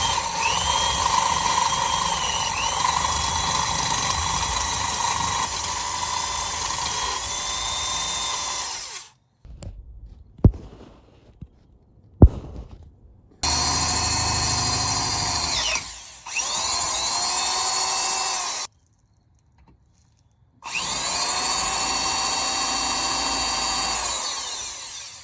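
Electric drill with a 5/16-inch bit boring out the threaded bolt holes of a rear differential yoke, in four long runs that spin up and wind down. There are two sharp clicks in the pause after the first run.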